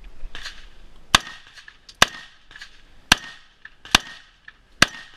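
Five gunshots, roughly one a second, each sharp and loud, with a faint ringing tone hanging between them.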